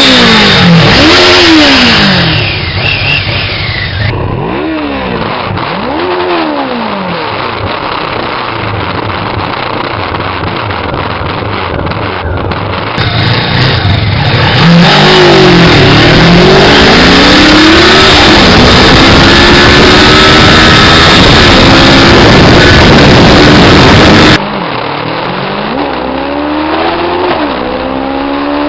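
A 500 cc motorcycle engine revved again and again: short blips near the start, each rising and falling in pitch, then a long run of high, loud revving in the middle, and a climbing rev near the end. The loudest stretches overload the recording.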